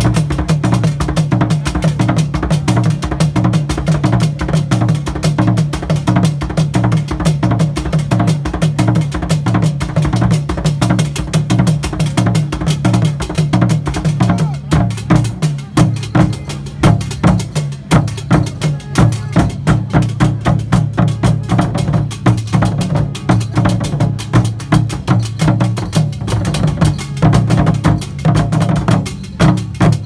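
Fontomfrom drum ensemble, the large Akan royal barrel drums struck with curved sticks, playing a fast, continuous interlocking rhythm of deep strokes with sharper higher strokes over them. About halfway through, the strokes open out into more distinct, spaced beats.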